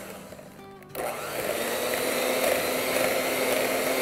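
Electric hand mixer beating thick strained yogurt and milk in a glass bowl. The motor drops off for a moment, starts up again about a second in, then runs steadily.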